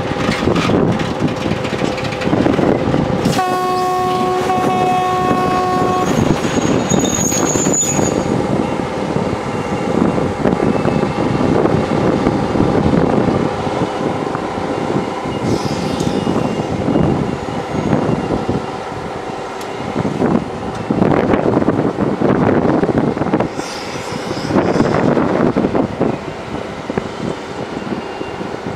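Sand being loaded onto a freight train: continuous noise of an electric excavator's conveyor dumping sand into open hopper wagons as the train creeps along, with a short high squeal about eight seconds in. About three seconds in, a horn sounds one steady blast lasting about two and a half seconds.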